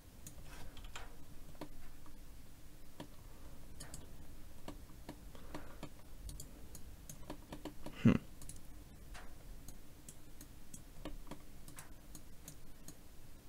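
Irregular light clicks from a computer mouse and keyboard during 3D editing work, with one louder knock about eight seconds in.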